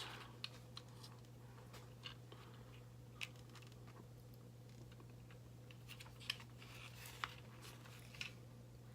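Faint, scattered clicks of a plastic Transformers action figure's arm joints as the arms are rotated out, over a low steady hum.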